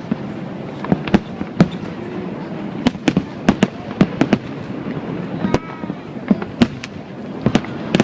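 Aerial fireworks exploding in a rapid, irregular string of sharp bangs and cracks, more than a dozen over a few seconds, above a steady background hum of outdoor noise.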